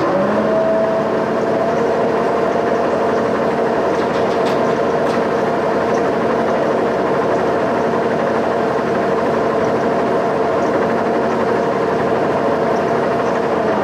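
Boring mill's axis feed drive moving the table under power: a steady motor hum that rises in pitch as it comes up to speed at the start, holds level, and falls away as it stops at the end. The run is a sweep of the setup block past a dial indicator to check the rotary table for flatness and parallelism.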